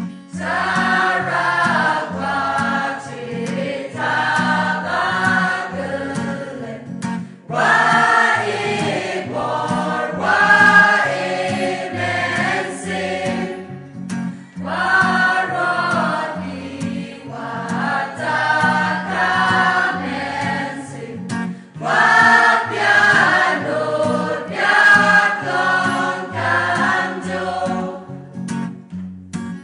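A mixed choir singing a hymn with acoustic guitar accompaniment, in four long phrases with short breaks between them.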